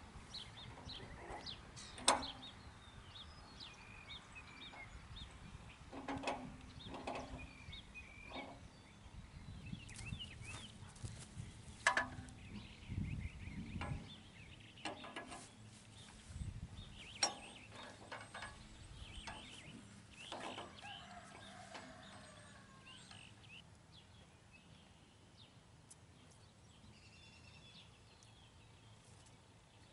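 Steel loading ramps knocking and clanking against the sawmill's steel bed rails every few seconds as they are fitted. Birds call faintly in the background.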